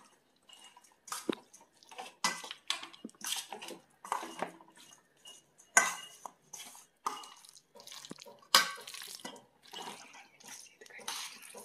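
Hands kneading chicken in a wet spice marinade in a stainless steel bowl: irregular squelches and scrapes against the metal, one or two a second.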